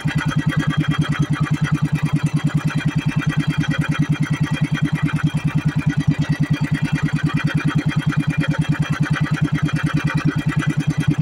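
Small outrigger boat's engine running steadily at a constant speed, with a fast, even putter.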